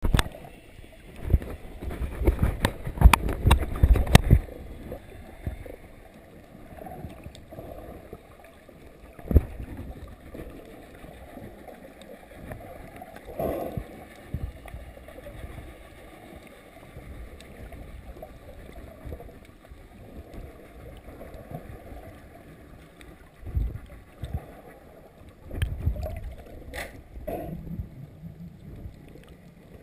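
Muffled underwater sound picked up by a camera submerged while snorkelling: a low wash of moving water, with a burst of sharp knocks and splashing in the first few seconds at the surface, a single sharp knock about nine seconds in, and scattered soft thumps later.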